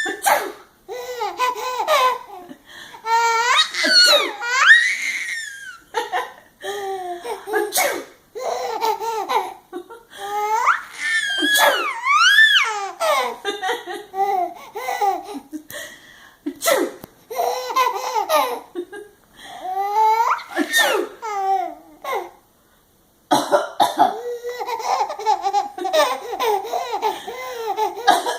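Baby laughing hysterically in repeated fits of giggles and high, gliding squeals, set off by an adult's fake coughs, which come as short sharp bursts between the laughs.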